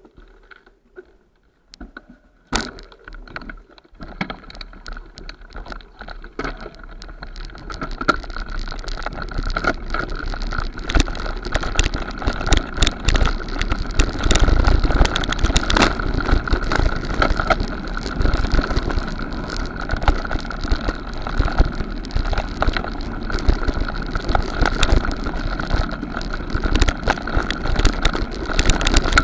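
Bicycle rattling over a rough forest trail, with dense clatter from the frame and chain as the tyres run over dirt, roots and stones. Fairly quiet for the first few seconds apart from a single sharp click, then the rattle builds up over several seconds and stays loud.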